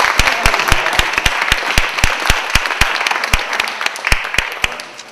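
Audience applauding, with a few single claps loud and close among the general clapping; it fades away near the end.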